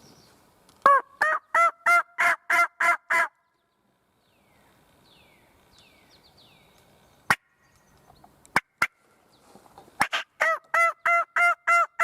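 Two series of hen turkey yelps, about eight arched notes each, given on a turkey call to draw a gobbler; a few sharp clicks fall between the two series.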